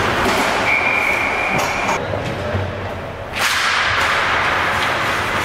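Ice hockey rink noise from the bench: skates, sticks and players on the ice. Under a second in comes a single steady referee's whistle blast of just over a second. After it the sound goes dull for about a second and a half, then returns with a sudden sharp crack.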